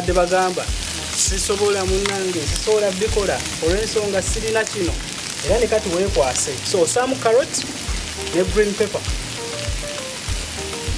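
Diced potatoes, carrots and onions sizzling in oil in a frying pan, stirred with a wooden spoon. Background music with a singing voice and a steady beat runs over it.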